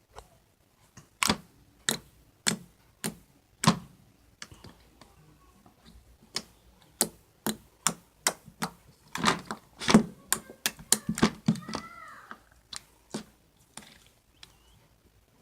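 Jiggly slime being squished and poked by hand, giving sharp clicks and pops. They come about one every half second at first, then a quick run of them a little past the middle.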